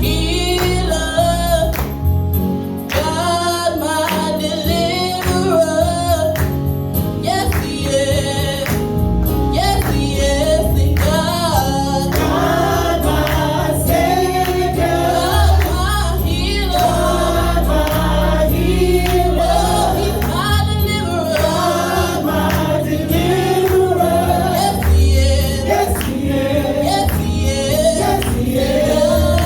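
Gospel choir singing with instrumental backing: a congregational worship song with steady bass and sustained chords under the voices.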